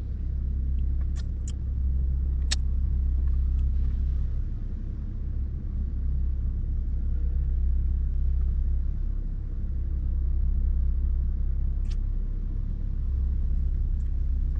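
Car's steady, low engine rumble, with a few small clicks in the first few seconds and one more near the end.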